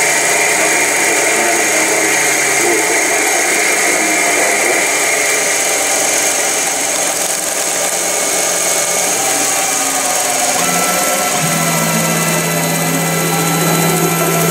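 CNC lathe turning a workpiece: a steady run of spindle and cutting noise with a constant whine over it. About eleven seconds in, a low hum shifts to a new steady pitch and a higher tone joins it.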